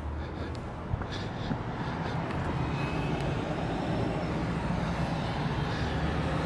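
Road traffic: a steady hum of passing cars and buses that grows a little louder.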